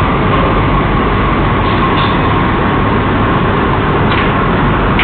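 Steady loud hiss and rumble with a faint high whine running through it: room noise picked up by a CCTV camera's microphone, with a few faint small clicks near the end and no ball struck.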